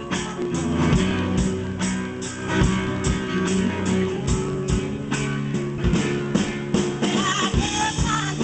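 Live rock band playing: a drum kit keeps a steady beat under guitar.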